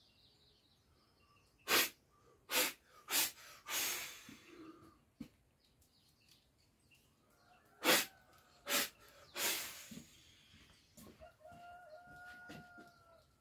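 A shaman blowing liquid from his mouth in forceful sprays during a cleansing ritual: a few short sharp puffs followed by a longer hissing spray, twice. A rooster crows faintly near the end.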